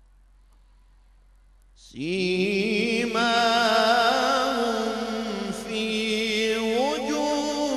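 A man reciting the Quran in a slow, melodic style, coming in after about two seconds of near silence. He sings long held notes that waver in pitch and slide between tones.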